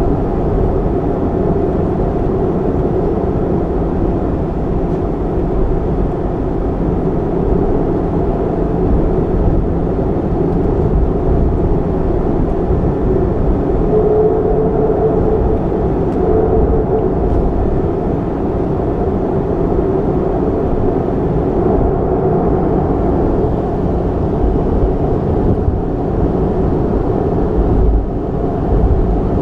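Boeing 737-300's CFM56 jet engines heard from inside the passenger cabin: a steady, loud rumble with a faint tone running through it.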